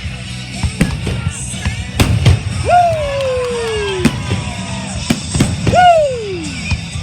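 Fireworks going off in sharp bangs, about seven over the stretch, with music playing underneath. Two long falling whistles sound, one at about three seconds in and one near six seconds.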